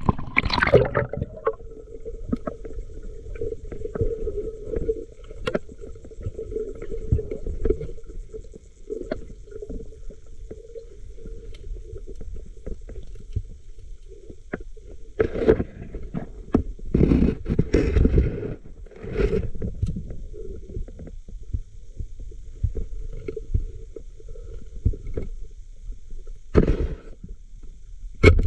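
Muffled underwater noise picked up by a diver's camera: a continuous low rumble, with several loud bursts of bubbling, most of them about halfway through and one more near the end.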